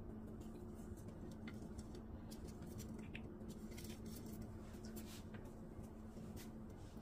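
Fingers crumbling a Maggi stock cube into a pot: faint scattered crackles and ticks over a steady low hum.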